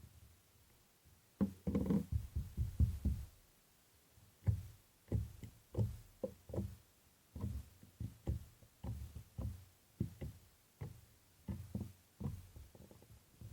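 Slime being squeezed and pressed by hand: a run of soft, irregular, low squishing thuds, about two or three a second, starting about a second and a half in.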